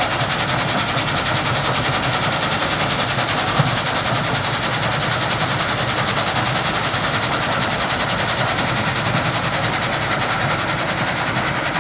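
Crusher machinery running steadily, a loud continuous mechanical din with a fast, even rattle.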